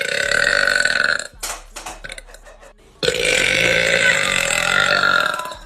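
A woman burping loudly twice: a burp about a second long, a short pause, then a longer burp of about two and a half seconds.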